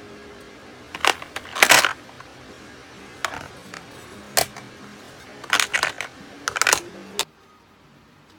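Makeup compacts, palettes and lipstick tubes clinking and clattering against each other as they are picked out of a paper storage box by hand, in short clusters of knocks every second or two. A steady background hiss drops away near the end.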